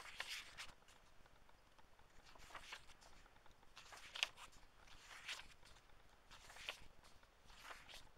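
Pages of an old book being turned by hand: faint paper swishes and rustles, one every second or so, the sharpest about halfway through.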